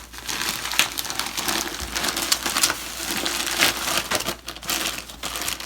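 Packaging crinkling and crackling in hasty, irregular handling as a small parcel of hand sanitizers and holders is stuffed back into its wrapping.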